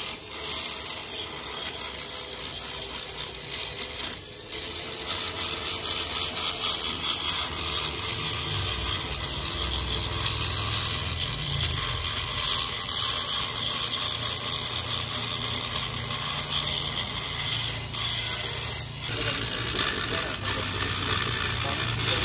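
Continuous rasping of a tool working metal inside the port of a Yamaha RX-King two-stroke cylinder as it is ported, with a couple of brief pauses.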